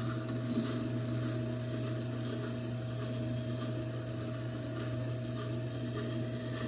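Tormek T4 wet sharpener running with a steady motor hum while a knife's bevel is ground on its turning stone, giving an even scraping over the hum.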